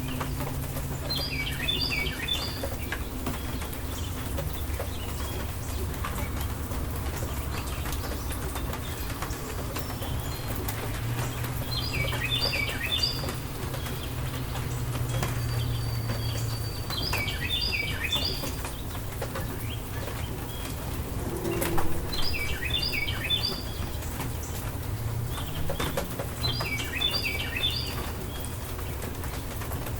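Steady rain falling over a low rumble, while a songbird sings a short, quick phrase of high chirps five times, about every five seconds. A single sharp click sounds a little past the middle.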